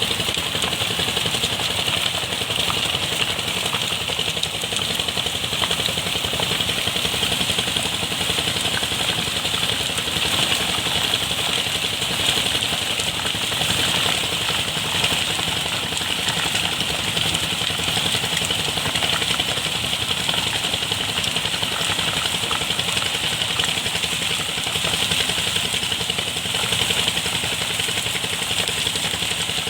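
An engine running steadily at an even speed, with no change in pace.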